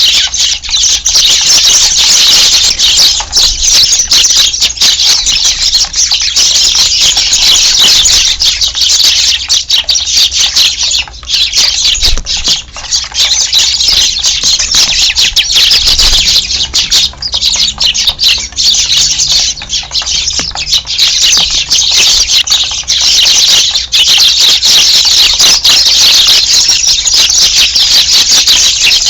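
A large flock of Eurasian tree sparrows chirping all at once: a loud, unbroken chorus of overlapping high chirps.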